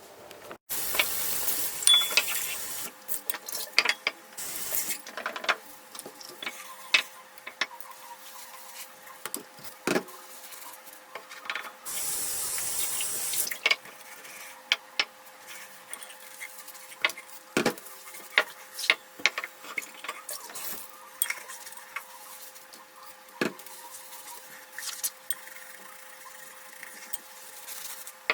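Kitchen handling sounds: many sharp clicks and knocks of containers, jars and lids being moved and set down. A steady rushing hiss comes twice, about 2 s near the start and about 1.5 s in the middle, over a faint steady hum.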